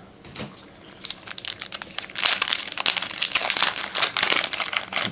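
Crinkling and rustling of trading-card packaging being handled as cards are pulled from a packed box. It is sparse at first and grows louder and denser about two seconds in.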